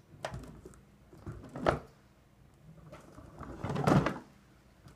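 Home-built BB-8 robot rolling across a carpeted floor: several dull knocks and thumps, the loudest near the end.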